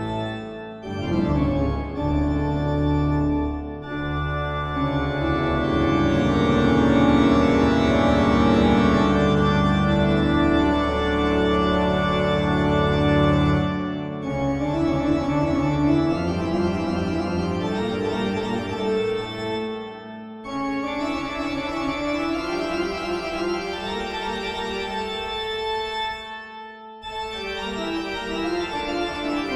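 Eerie instrumental horror background music of long, sustained chords, breaking off briefly three times.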